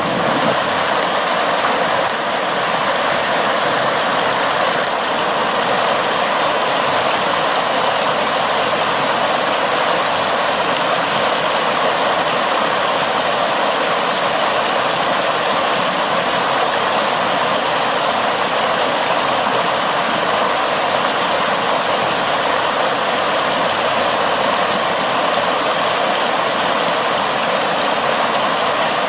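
Fast floodwater rushing and churning over the edge of a concrete slab, a loud, steady wash of white water with no let-up.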